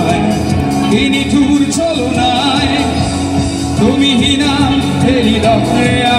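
A song playing: singing over instrumental backing.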